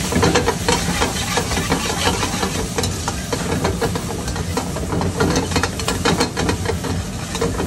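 A steel ladle scraping and clinking against a steel wok in quick, irregular strokes as pieces of khaman dhokla are tossed in a green tempering, over a steady low rumble and hiss.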